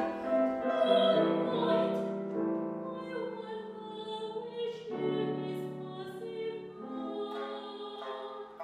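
Music of slow, long held notes that move to new pitches every second or two, fading slightly toward the end.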